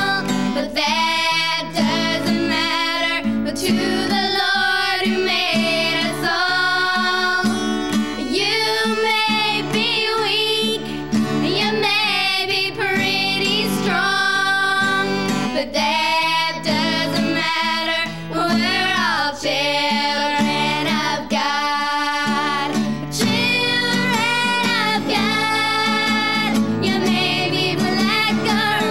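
Four girls, aged 9 to 15, singing a song together to an acoustic guitar played by the eldest.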